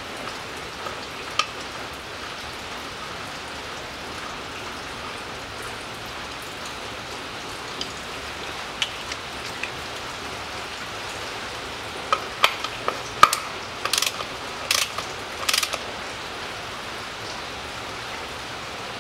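Ratchet wrench with a hex bit clicking as it runs in the tapered fill plug of a transfer case: a few light clicks, then from about twelve seconds in a string of sharp clicks and three short rattling bursts that stop a few seconds before the end. Under it a steady hiss.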